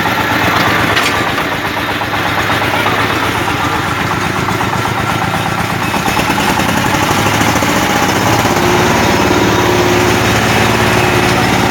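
Combine harvester's engine running steadily, growing a little louder about six seconds in, with a higher tone joining about two seconds later.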